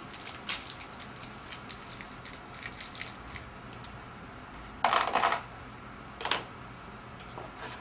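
Small metal Allen screws and an Allen wrench clicking and clinking as they are handled, with a louder metallic clatter about five seconds in.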